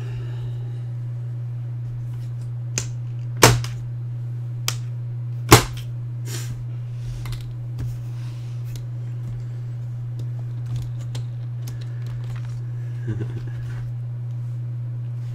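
Metal latches on an aluminium case snapping open: two sharp clicks about two seconds apart, with a few lighter clicks and handling noise as the foam-lined lid is lifted.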